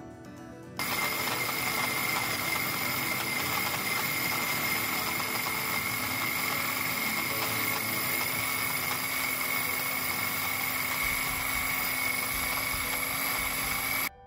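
Black+Decker electric mini chopper running, its motor and blades chopping ginger and garlic with a steady whine. It starts abruptly about a second in and cuts off suddenly near the end.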